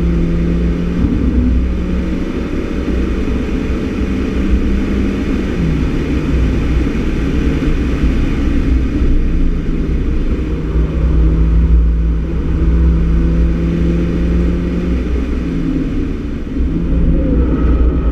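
Mini Cooper S engine with an aftermarket Works exhaust, heard from inside the cabin, pulling hard at steady high revs, its pitch dipping briefly about six seconds in and again near fifteen seconds. Wind and tyre noise throughout.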